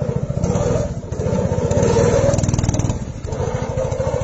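Small engine of a tracked crawler motorcycle running and revving, with rapid, even firing pulses. It eases off briefly about a second in and again a little after three seconds.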